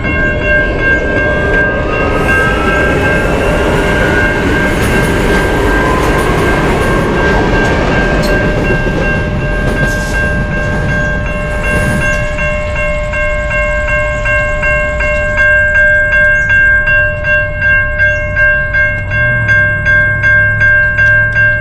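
A train passing close by with a long, steady horn note held almost the whole time over the rumble of the train. In the second half the rumble eases and a rhythmic clatter of wheels on rail joints sets in, about two beats a second.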